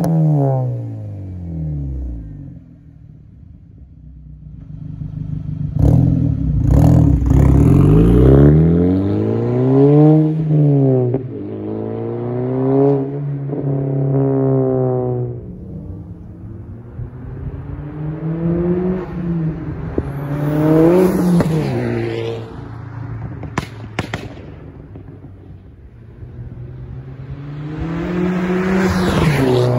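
Volkswagen Golf GTI Mk6 with a 2.0-litre turbocharged four-cylinder and a crackle tune, pulling away and revving up and down through the gears. A few sharp pops and crackles come from the exhaust as the throttle closes. The engine fades into the distance twice and grows louder again near the end as the car comes back.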